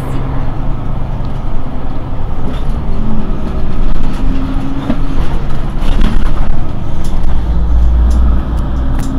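Mercedes-Benz Citaro G C2 Euro 5 articulated diesel bus under way, its engine running with the pitch shifting as it pulls. A deep rumble swells near the end.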